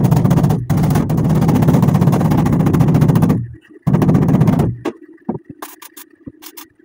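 Arc welder running beads on a steel patch panel of the truck bed: three runs of dense crackling, about one, three and one second long with short breaks between. Then a steady hum with a few brief crackles near the end.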